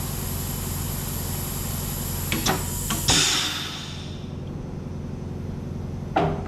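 Valve seat-and-guide machine setup: a steady machine hum with a hiss, then two metal clunks about two and a half and three seconds in, after which the hiss cuts off; another clunk comes near the end.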